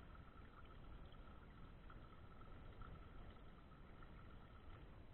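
Faint, steady trickle of water splashing into a small spring-fed pool as a camera housing is rinsed under it, with a thin, faint steady tone above it.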